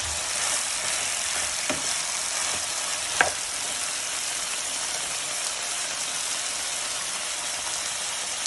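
Chicken strips and shredded vegetables sizzling steadily as they are stir-fried in a hot wok. A spatula clicks against the pan twice, the louder click about three seconds in.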